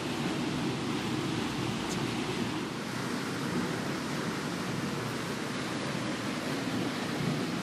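Steady rushing outdoor noise, even in level, with no distinct events.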